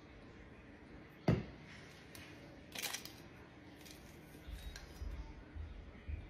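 A sharp knock about a second in as a plastic syrup bottle is set down on a stone countertop, then a short crinkling tear as a straw's wrapper is ripped open, followed by soft low bumps of handling near the end.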